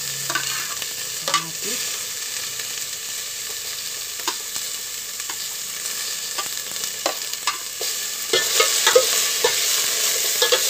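Onion, garlic and ginger sizzling in oil in an aluminium pot while sliced tomatoes are scraped in and stirred, with sharp clicks of the utensils against the plate and pot. The sizzle grows louder about eight seconds in.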